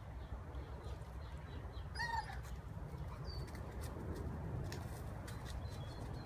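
Rhodesian Ridgeback giving one short, high whine about two seconds in, with small birds chirping now and then over a steady low outdoor rumble.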